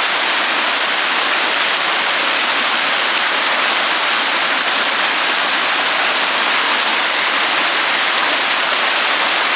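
Steady, unbroken rushing hiss like falling water, with its weight in the upper range and little low rumble.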